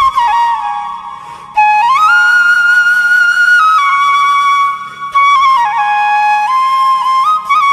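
Background music: a solo flute playing a slow, stepwise melody, with a long held high note about two seconds in.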